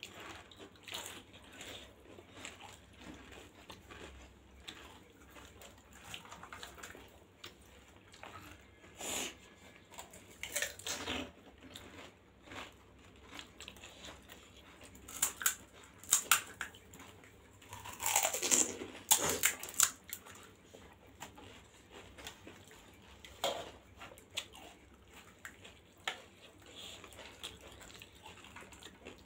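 Close-miked chewing and biting of pani puri, with the crisp puri shells crunching in scattered short sharp clicks. A louder stretch of eating sounds comes between about 15 and 20 seconds in.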